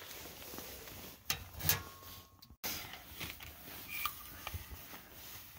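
A fire burning in a small camp wood stove fed with compressed bio bricks: a steady hiss with scattered crackles and clicks, and a couple of louder knocks about a second and a half in.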